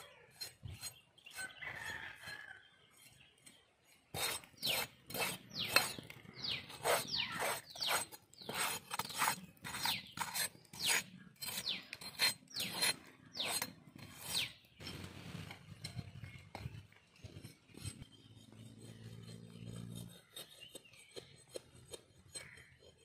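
A large curved knife scraping the fire-singed, charred hide of a cow's head, in a quick run of scraping strokes, about two a second, that stops about two-thirds of the way in.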